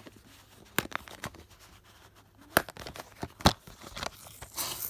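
Toy car packaging being handled and opened: a few sharp clicks and taps, then crinkling and tearing starting near the end.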